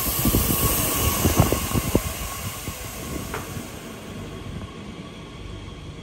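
Passenger train pulling into a station platform, its wheels rumbling and clattering and fading as it slows, with a short squeal about three seconds in.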